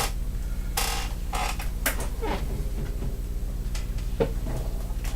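Small laptop screws and parts being handled and set down on a desk: a scatter of short scrapes and clicks at irregular intervals, over a steady low hum.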